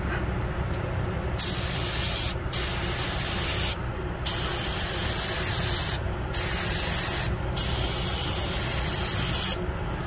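Aerosol can of brake cleaner spraying onto an engine's timing-belt area: five hissing bursts with short breaks between them, starting about a second and a half in and stopping just before the end.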